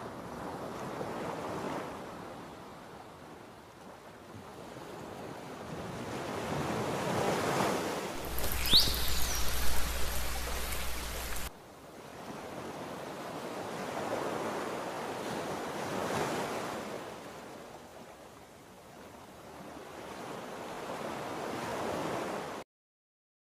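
Rushing underwater water noise that swells and fades every few seconds. In the middle, a louder stretch of about three seconds starts and stops abruptly and carries a brief upward-sweeping dolphin whistle. The sound cuts off suddenly near the end.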